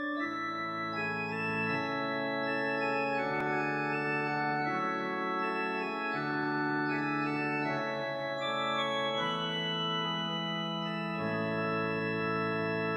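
Instrumental music: sustained organ chords that change every couple of seconds, with no singing yet.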